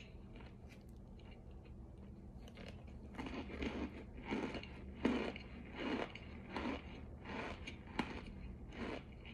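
Close-up chewing of something crunchy: after about three quiet seconds, a regular crunch comes roughly every 0.7 seconds, over a steady low hum.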